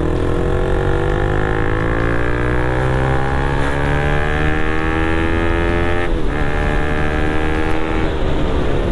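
Motorcycle engine pulling under acceleration, its pitch climbing steadily. About six seconds in there is a brief dip, a gear change, after which it climbs again before easing off near the end. Under it runs a heavy low rumble of riding noise.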